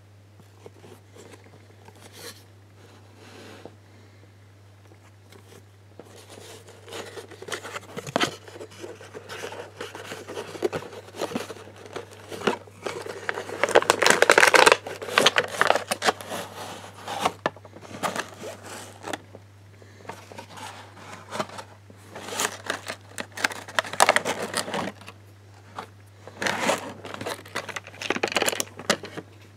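Clear plastic display packaging of a die-cast model bus being handled and opened by hand: irregular crinkling and crackling of the thin plastic, loudest about halfway through and returning in bursts near the end. A low steady hum sits underneath.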